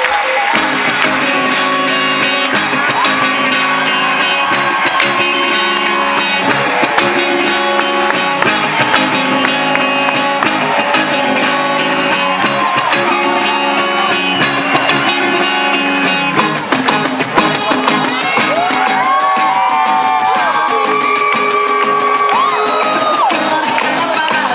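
Loud live rock band performance, guitars and drums with a steady pulsing beat and a melody line over them. The sound turns brighter and fuller about two thirds of the way through.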